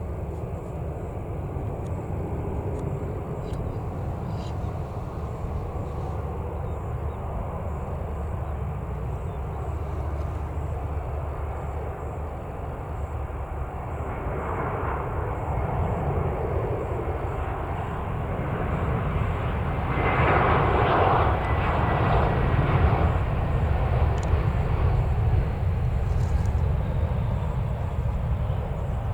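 Lufthansa Airbus A321-131's IAE V2500 jet engines during landing, over a steady low rumble. The jet noise swells about halfway through and is loudest about two-thirds of the way in, with a faint falling whine, then eases off.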